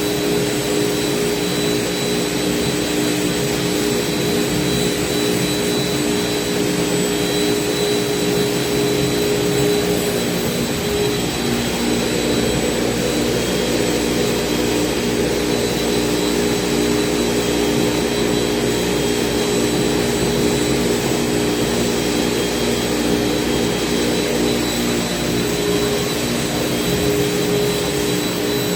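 CNC router running steadily as it cuts, a constant whine over a vacuum-like rushing noise. Its lower tones shift in pitch about eleven seconds in.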